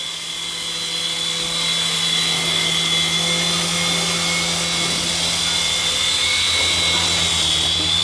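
Syma S109G mini toy RC helicopter's electric motors and coaxial rotors running steadily in flight: a high-pitched whine over a lower hum, growing louder over the first couple of seconds as it flies close.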